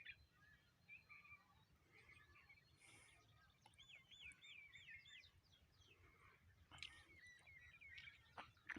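Several small birds chirping and singing faintly, with many short calls and a quick run of looping whistled notes about four seconds in.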